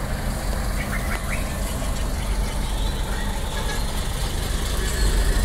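Diesel city buses running at low speed, a steady low engine hum as one bus drives by. The hum grows louder near the end as another bus approaches.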